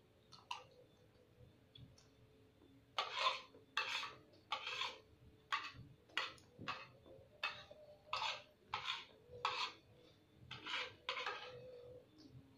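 A person eating close to the microphone. About three seconds in, a run of short, evenly spaced eating noises begins, about one and a half a second, and keeps going until near the end.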